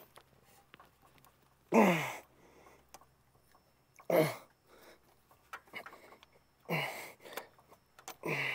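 Four short, breathy vocal sounds, each falling in pitch, spaced about two to three seconds apart.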